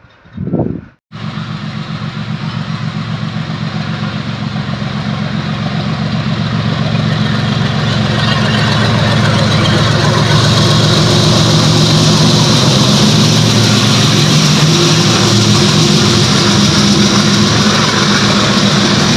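Diesel freight locomotive's engine running with a fast, even throb as it approaches hauling a goods train. It grows steadily louder over several seconds and stays loud as it passes, with the wagons rolling by.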